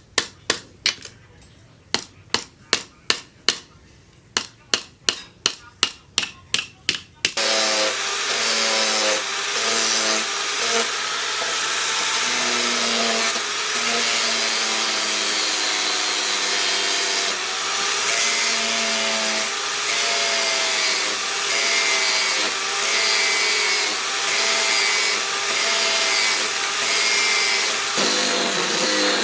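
Hammer blows on steel at an anvil, about three strikes a second in short runs. About seven seconds in they give way abruptly to a power grinder running continuously against steel.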